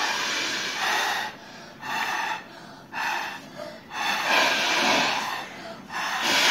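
Breath blown hard through a drinking straw to inflate a bubble of fluffy slime: a series of hissing puffs, each up to a second or so long, with short pauses between them.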